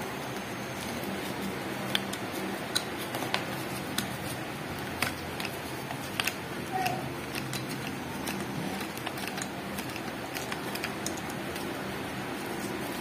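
Scattered light clicks and rattles from the plastic clips and straps of a phone chest-mount harness being handled and fitted, over a steady low hum.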